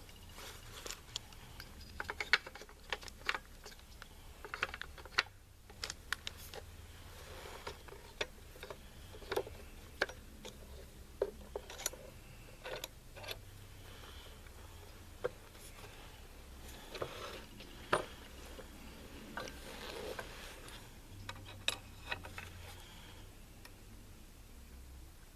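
Light, irregular clicks and taps of small metal rifle parts and tools being handled and fitted during assembly of an AR-pattern upper receiver, over a low steady hum.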